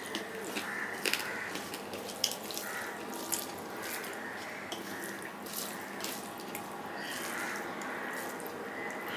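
Wet eating sounds: fingers squishing and kneading rice with mashed prawn on a steel plate, and chewing with mouth smacks, dotted with many sharp little clicks.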